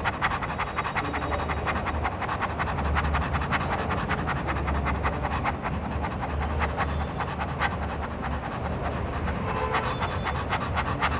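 A woman panting rapidly with her tongue out: quick, shallow breaths in and out, like a panting dog, in the 'dog breath' (Bhairava) breathing exercise.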